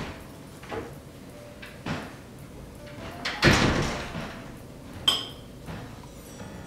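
Metal spoons knocking and scraping in ceramic soup bowls, with a sharp, ringing clink about five seconds in. A louder noisy sound lasting under a second comes about three and a half seconds in.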